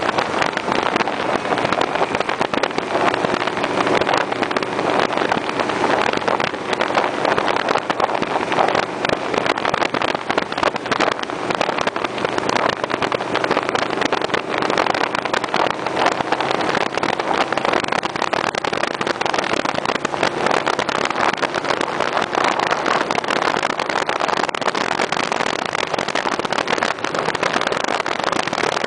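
Motorcycle riding at steady road speed: the engine running evenly under a constant rush of wind on the microphone.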